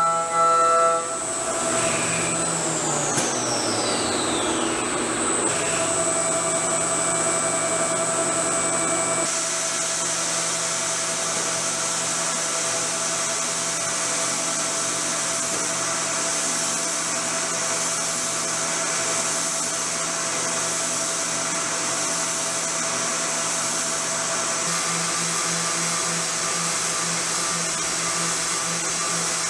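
CNC milling machine spindle running at high speed while a small end mill cuts a steel part. A steady machine whine falls in pitch a couple of seconds in, then steadies again. From about nine seconds a steady hiss of cutting and air joins it.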